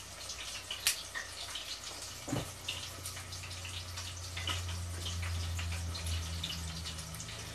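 Breaded coconut shrimp deep-frying in a pot of oil: a steady crackle of many small pops and sizzles. Two soft knocks come about one and two and a half seconds in, and a low hum joins at the second knock.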